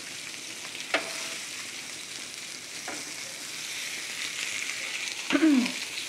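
Meat frying on a stovetop griddle: a steady sizzle, with two light clicks of a utensil and a louder clatter with a short falling ring near the end.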